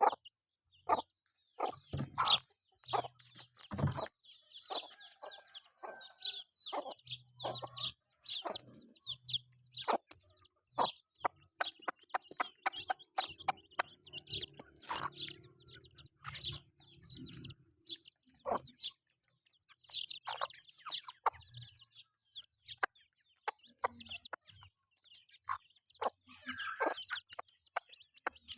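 Chickens clucking softly and repeatedly while foraging, mixed with many short, sharp clicks and taps.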